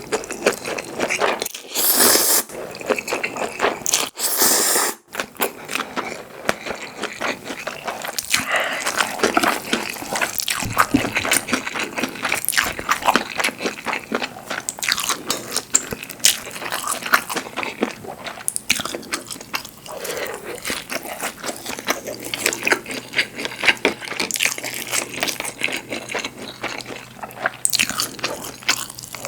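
Close-miked chewing and biting of food, with a dense run of wet mouth clicks and small crunches, and a few louder bursts in the first five seconds.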